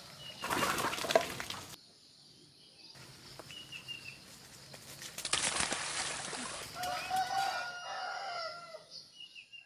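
Rural ambience: a rooster crowing in one drawn-out call about seven seconds in, with a few short high bird chirps and two bursts of rustling noise earlier. The sound drops out completely for about a second near two seconds in.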